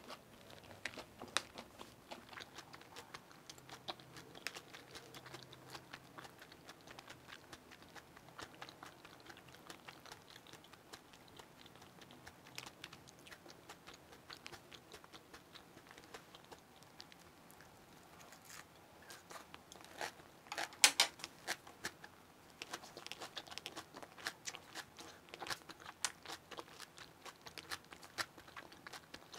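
Close-up mouth sounds of a person chewing and biting a crisp chive pancake (buchujeon) with kimchi: many small crunches and wet clicks, with a louder burst of crunching about two-thirds of the way through.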